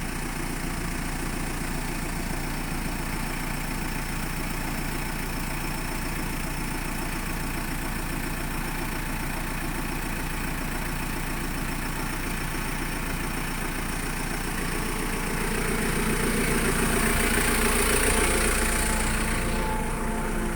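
JCB 3CX backhoe loader's diesel engine running steadily, growing louder for a few seconds near the end before settling back.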